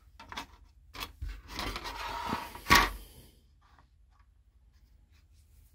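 Sheet-plastic model parts being handled: a couple of light clicks, then about a second of scraping and rubbing as a plastic piece is slid over the model's plastic saucer, ending in one sharp tap just under three seconds in.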